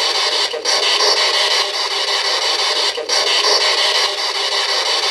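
Spirit box radio static: a loud, steady hiss of scanned radio noise, broken by short dropouts about every two and a half seconds.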